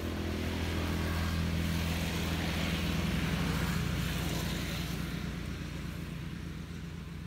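A motor vehicle's engine running nearby, a steady low hum with road noise that grows louder to a peak about halfway through and then fades as it passes.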